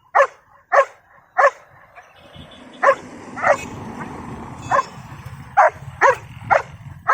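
Belgian Malinois barking: about ten sharp single barks at an uneven pace, with a rushing noise underneath for a couple of seconds in the middle.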